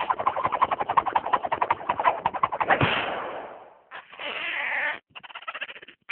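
Cartoon sound effects: a fast, squeaky pulsing for about three seconds that fades away, then a short hiss about four seconds in, and a few clicks near the end.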